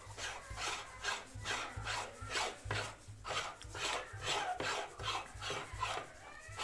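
Metal meat grinder working through green lemons, giving repeated rasping, scraping strokes in a quick, even rhythm of about three a second.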